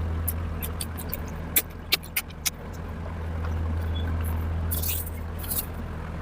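Eating sounds: a few sharp mouth clicks and smacks from chewing, then a brief wetter smacking burst near the end, over a steady low hum.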